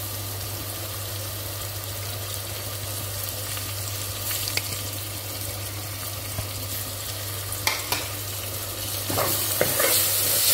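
Masala with mint and fresh coriander leaves sizzling in an aluminium pressure cooker pot, a steady frying hiss. Late on, a steel slotted ladle stirs it with a few sharp scrapes and knocks against the pot, and the sizzle grows louder.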